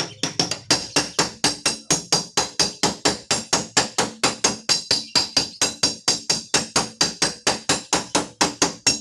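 Hammer tapping rapidly and evenly on a car's steel door panel, about five light strikes a second, each ringing briefly: the dent in the door skin being worked out.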